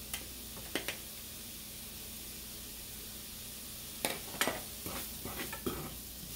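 Sliced baby bella mushrooms sizzling steadily in a small nonstick skillet. In the last couple of seconds a run of sharp clicks and scrapes joins in as a fork stirs them in the pan.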